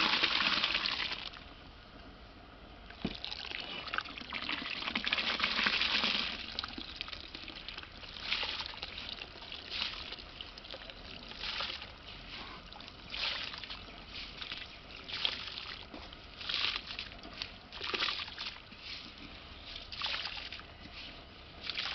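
Wet basmati rice poured from a bowl into a large aluminium pot of spiced cooking liquid, splashing and pattering into it. There is a long pour at the start and another from about four to six seconds in, then a run of shorter splashes about once a second as the rice is pushed out by hand.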